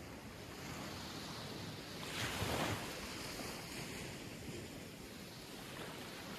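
Small waves breaking and washing up a sandy shore, with one louder wash about two seconds in.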